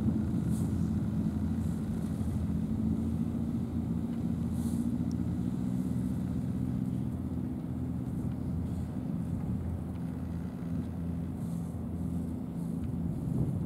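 A low, steady engine drone that holds one pitch throughout.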